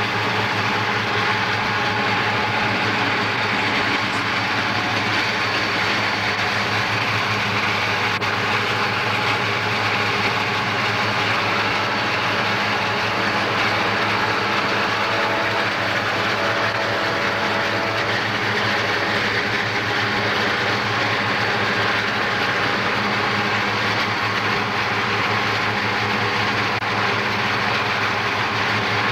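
Steady road and wind noise inside a moving car, with the low, even drone of Southern Pacific diesel freight locomotives running alongside.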